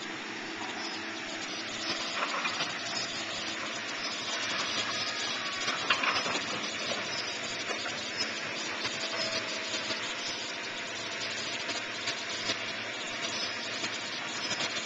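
Steady engine noise from vehicles or machinery, with a few short knocks, the loudest about six seconds in.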